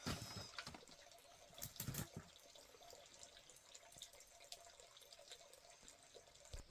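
Faint water sounds, splashing and dripping, with two louder splashes, one right at the start and one about two seconds in, among scattered small clicks.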